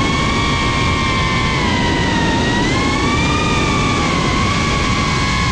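FPV quadcopter's motors and propellers whining at speed, the pitch drifting gently up and down with the throttle, over a steady rush of propeller and wind noise.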